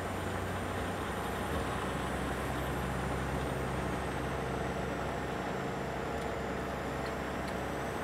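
Steady road noise inside a moving vehicle crossing a bridge: engine and tyre drone with a low hum and a faint high whine.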